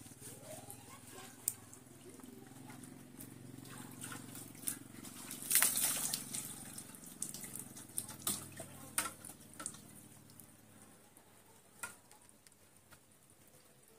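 Water poured over a bather splashing onto a wet slab, one loud splash about halfway through, with scattered drips and smaller splashes around it over a faint low hum.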